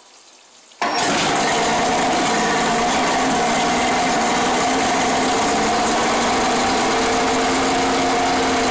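Evinrude 150 hp two-stroke V6 outboard motor firing up about a second in, catching at once, then running at a steady idle.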